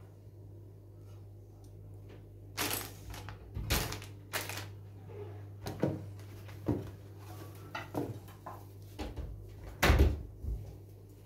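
Handling noises on a table as a Lego set is laid out: scattered short knocks and rustles, the loudest about ten seconds in as the cardboard box is set down. A steady low hum runs underneath.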